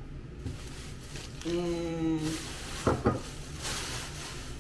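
Plastic shopping bags and packaging rustling and crinkling as items are handled, with a short hummed note near the middle and a couple of light knocks about three seconds in.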